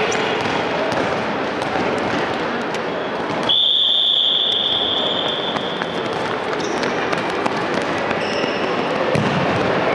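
A whistle blown in one long steady blast of nearly three seconds, starting about a third of the way in, over the noise of handball practice on a hard court: ball bounces, footfalls and short shoe squeaks.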